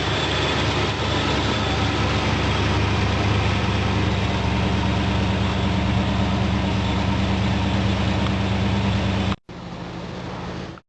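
Car engine running steadily. It cuts off sharply about nine and a half seconds in; a quieter steady sound follows briefly, then stops just before the end.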